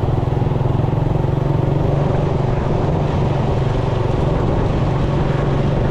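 Suzuki Raider 150 motorcycle engine running steadily at an even cruising speed while riding.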